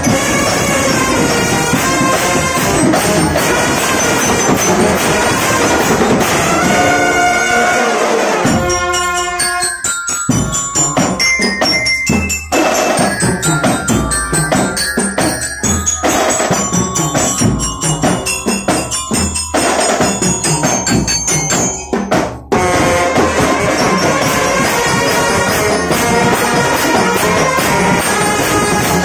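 Indonesian drumband (marching band) playing loudly: snare and bass drums with trumpets and marching bells. From about eight seconds in the sound thins to a passage of drum strokes and bell-like mallet notes, and the full band comes back in at about 22 seconds.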